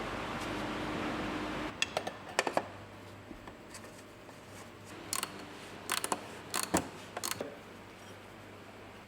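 A steady hiss that cuts off abruptly about two seconds in, followed by a few sharp, irregular metallic clicks and clinks of hand tools and parts being handled during a car oil and filter change.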